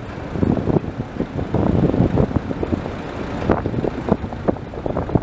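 Heavy port machinery giving an uneven low rumble, with scattered short knocks throughout.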